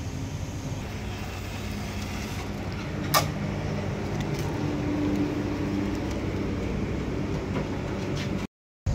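Steady mechanical hum of a fuel dispenser at work, with a single sharp click about three seconds in.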